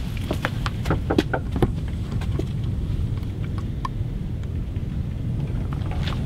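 Steady low rumble of wind on the microphone, with a run of short crunching steps, footsteps in snow, over the first two seconds or so, then only a few scattered clicks.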